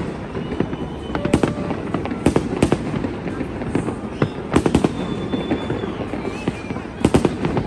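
Fireworks display: about ten sharp bangs of bursting shells at irregular intervals, some in quick pairs, over a continuous low rumble.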